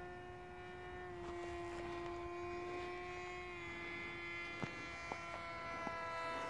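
X-UAV Bobcat RC plane's motor and propeller buzzing steadily as it flies, the pitch dipping slightly about a second in. A couple of faint clicks in the second half.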